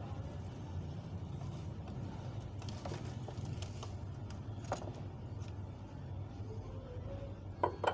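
Steady low background rumble, with a few light metal clicks and knocks as king pin parts are handled on the forklift steering knuckle, the two sharpest near the end.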